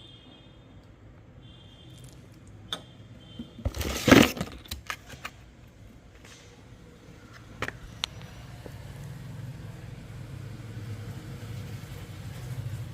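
Handling noises: a cluster of clicks and knocks about four seconds in, the loudest a sharp knock, then two single clicks a few seconds later. A low hum grows louder toward the end.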